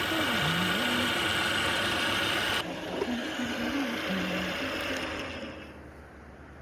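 Engine or machine running, with a steady hiss that cuts off suddenly about two and a half seconds in; the sound then fades down near the end.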